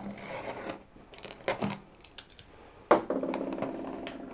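A utility knife slitting the packing tape along the seam of a cardboard box, with a couple of clicks, then a sharp knock and a drawn-out creak of cardboard as the box flaps are lifted open.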